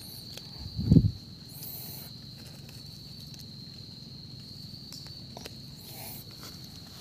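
A steady high insect trill, like a cricket, runs throughout. A loud low thump about a second in and a few faint clicks and rustles come from hands and the phone working among the leaf litter.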